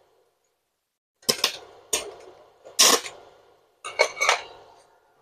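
Stick-welding electrode on a Fugu TB-250 DC inverter welder being struck against a steel bar: about five short sparking, crackling bursts with metallic taps, the longest about three seconds in.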